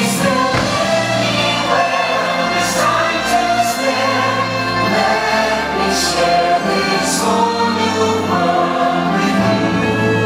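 Fireworks-show soundtrack: a choir singing over an orchestra, with several sharp firework bangs scattered through it.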